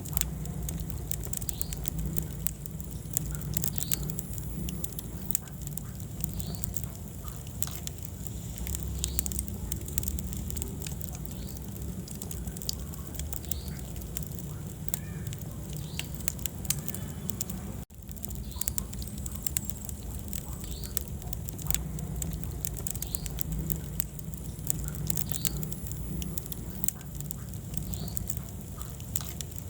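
Wood fire burning in a fireplace: frequent sharp crackles and pops over a steady low rumble of the flames. The sound breaks off for an instant a little past the middle.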